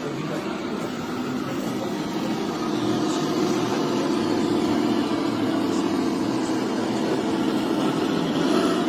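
A scale RC construction machine running steadily, its drive and motor noise getting louder about three seconds in.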